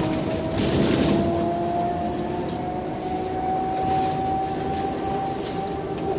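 Scania K270 bus running, its drivetrain whine rising slowly and steadily in pitch as it gains speed, over road rumble, with a short burst of noise about a second in.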